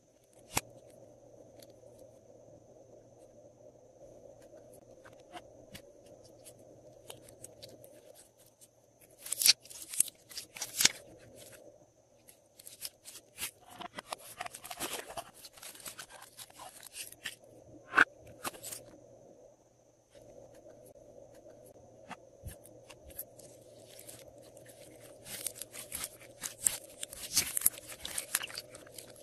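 Hands squeezing and stretching slime: sticky clicks and crackles come in three spells, the busiest near the end.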